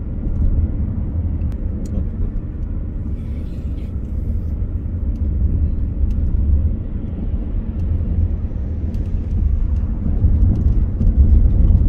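Road and engine noise heard inside a moving car's cabin: a steady low rumble that swells a little near the end.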